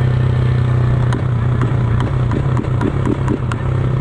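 150 cc single-cylinder motorcycle engine running at a steady speed through an ML Competition aftermarket exhaust, a deep note that is not very loud, with a run of sharp ticks in the middle. The exhaust is leaking where it joins the engine.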